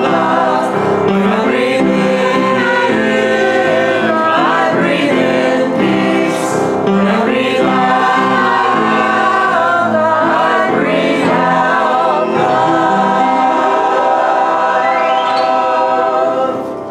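A choir singing, many voices together, with the singing dying away at the very end.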